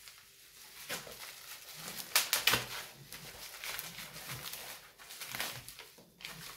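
Plastic packaging and small kit parts rustling and clicking as they are handled, with a cluster of sharper crackles about two seconds in.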